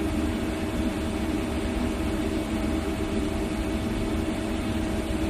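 CNC turn-mill machine running with a steady hum: a low rumble under several constant tones, with no cutting strikes or changes.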